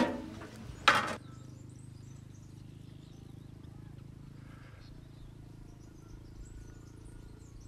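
Faint birds chirping over a steady low hum, after one short, loud knock about a second in.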